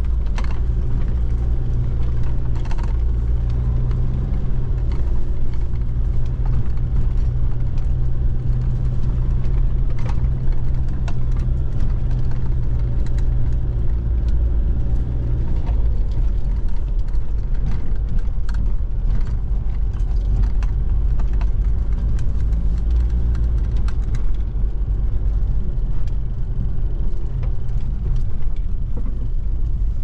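Four-wheel-drive vehicle driving on a rough road: a steady low engine and road rumble, with scattered knocks and rattles, and the engine note shifting about halfway through.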